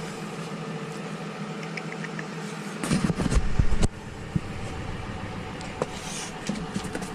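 A steady mechanical hum, like an engine idling, with about a second of loud low rumbling and knocks about three seconds in.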